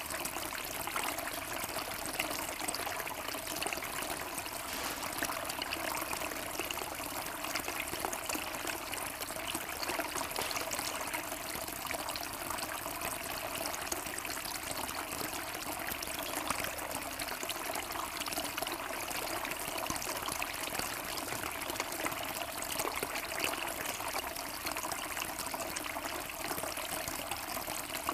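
Kelkay Harlow two-tier garden water fountain running, thin streams of water falling from each tier's rim and splashing into the basins below in a steady trickle.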